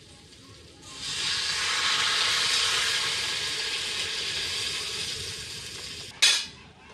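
Water poured into a hot pan of oil-fried spiced masala, hissing and sizzling as it hits the hot oil. It starts about a second in, swells quickly, then slowly dies down. A brief sharp noise near the end is the loudest moment.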